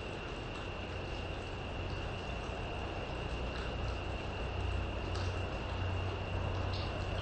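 Steady rain falling on foliage with an insect's continuous high trill running over it, and a low hum that gets a little louder about halfway through. A couple of sharper drip-like ticks come near the end.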